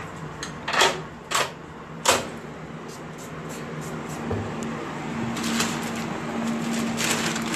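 Hotel room door being opened: the lever handle and latch give a few sharp clacks in the first two seconds, with a low thump about four seconds in. Near the end a plastic carrier bag rustles as it is grabbed and lifted.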